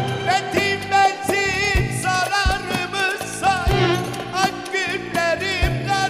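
Live Turkish arabesk music: a heavily ornamented, wavering melody line over a band backing with low drum strokes.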